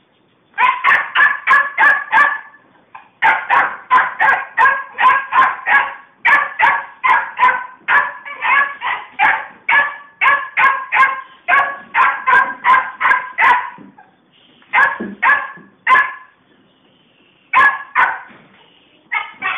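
Puppy barking from inside a plastic travel crate: quick, high yips about three a second, in long runs with short breaks, thinning to a few separate barks near the end.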